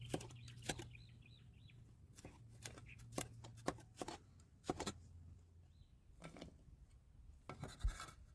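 Scattered light clicks and taps at an irregular pace over a faint steady low hum, a few of them coming close together near the end.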